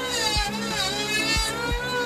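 Background music with a steady drum beat and a high melody that slides up and down in pitch.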